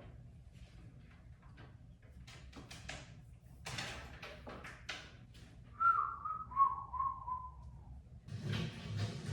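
A person whistling a short phrase that steps down in pitch, about two seconds long, after a run of sharp clicks and knocks. A rushing noise comes in near the end.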